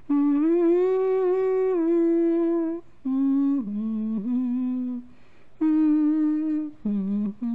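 A woman humming a slow tune unaccompanied, in five phrases of held notes separated by short pauses, with the pitch stepping down in the middle phrases.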